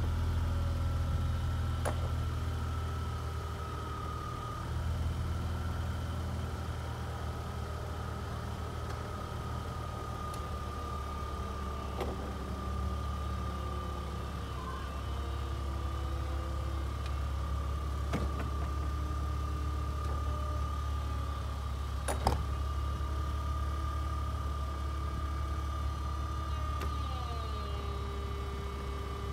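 BMW E46 330Ci convertible's electro-hydraulic soft top closing, with a steady hum under the engine idling and a few sharp clicks and clunks from the top mechanism, the loudest about three quarters of the way through.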